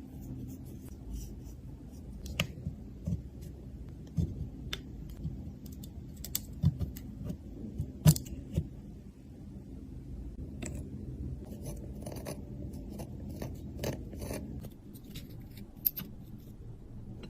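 Small hand tools clicking and scraping on a device being taken apart: irregular sharp clicks, the loudest about eight seconds in, over a steady low hum.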